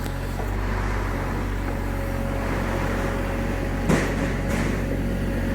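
Mini excavator's diesel engine running steadily at work, with a sharp knock about four seconds in and a fainter one just after.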